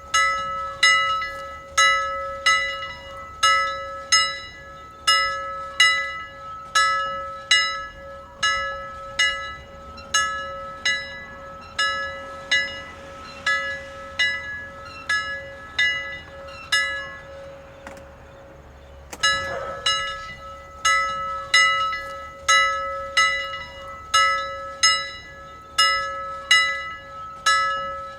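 A single bell rung over and over, a little faster than once a second. Each stroke rings out, and the bell's hum carries on between strokes. The strokes stop for about two seconds about two-thirds of the way in, then start again at the same pace.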